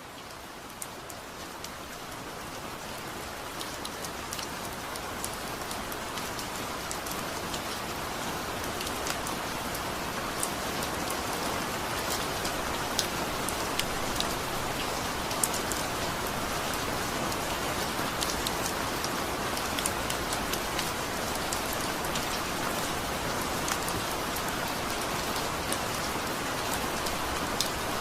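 Steady rain, an even hiss with scattered sharp drop impacts, fading in over the first several seconds and then holding level.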